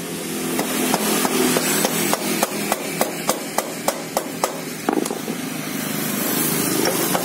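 Hammer tapping the final-drive gear case cover of an automatic scooter, about fifteen sharp, evenly spaced strikes at roughly three a second, to loosen the cover off the case.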